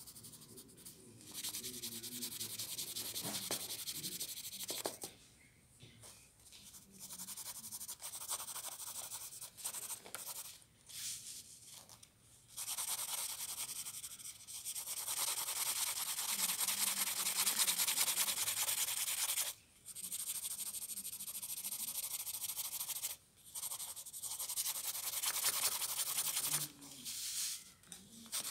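A pencil shading on paper: runs of quick back-and-forth scratchy strokes, broken by short pauses several times.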